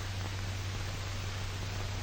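Steady hiss and a low, even hum from an old film soundtrack, with no other sound in it.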